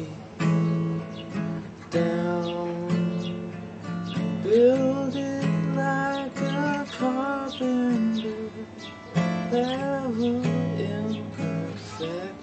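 Acoustic guitar strummed steadily, with a man singing a melody over it through the middle of the stretch.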